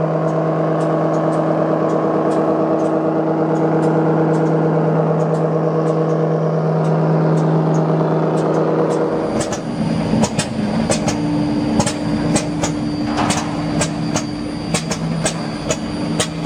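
Industrial brush sanding machine running with a steady, multi-tone hum. About nine seconds in the sound turns rougher, with scattered sharp clicks and knocks over the running machine.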